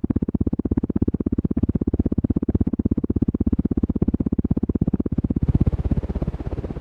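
Moss HF100 brass ceiling fan's spinning blades pushing air onto the microphone in a fast, even pulsing that starts suddenly. A little past five seconds in, the pulsing loosens into a rougher rush of wind noise.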